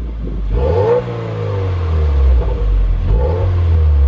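A 2018 Subaru WRX's turbocharged 2.0-litre flat-four, on its stock exhaust, is revved twice in neutral to about 2,500 rpm. Each time the pitch rises, then falls back to a steady idle.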